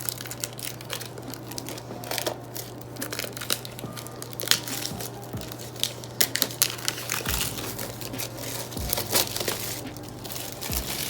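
Plastic shrink-wrap being torn open and peeled off an album, crinkling with many irregular sharp crackles.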